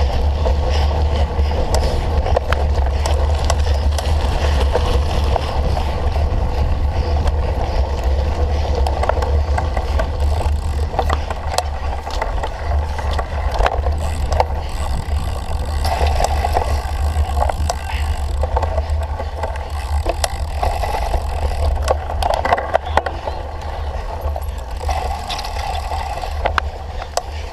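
Wind rumbling on the microphone of a camera carried on a cyclocross bike while riding, with the bike rattling and ticking over rough ground.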